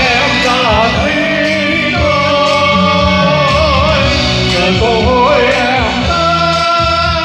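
A man singing a ballad into a microphone over backing music, through loudspeakers; his voice holds long, wavering notes.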